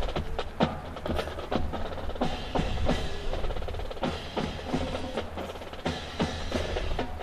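Sharp wooden knocks and slaps of an honor guard's rifle drill, rifles struck and handled in unison at about two a second.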